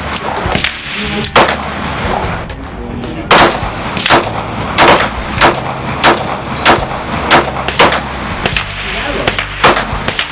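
Ruger SR9C 9mm pistol firing a string of about a dozen shots, spaced roughly half a second to a second apart.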